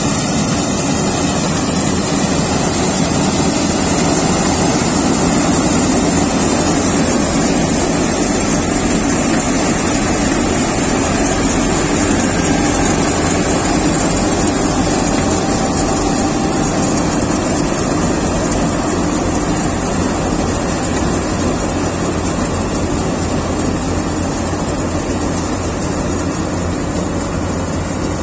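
Kartar 4000 combine harvester running steadily under load while cutting and threshing paddy: a loud, even machine drone of engine and working parts.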